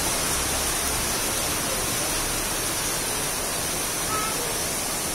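Heavy rain falling in a steady, even downpour hiss.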